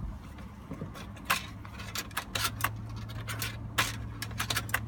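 Irregular clicks, taps and scrapes of hands working plastic and metal parts at a newly installed gear shifter in a car's centre console, over a low steady hum.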